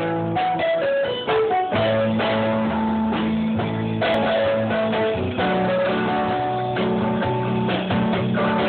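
Live dance music from a keyboard player: a melody of short stepping notes over a steady bass line.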